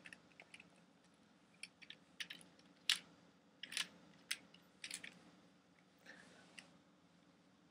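Lego bricks on a brick-built toy gun clicking and rattling as it is handled, in scattered light clicks, the loudest about three seconds in.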